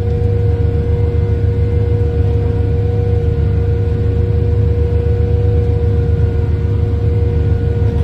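350 hp OXBO 8430 sweet corn harvester running steadily under load, heard from inside its cab. Its engine and harvesting machinery make a loud, even drone with a steady whine above it.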